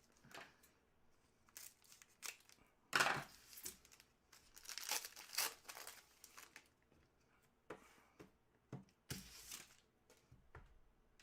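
Trading-card pack wrapper being torn open and crinkled, with cards handled: a series of short, faint rustles and tears, loudest about three seconds in and again around five and nine seconds.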